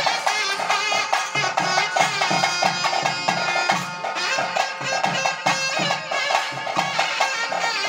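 Live ritual music for a bhuta kola dance: a reed pipe playing a winding, wavering melody over a steady, quick drum beat.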